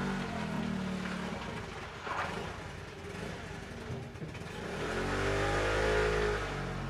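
A vehicle engine running, revving up and easing off again near the end.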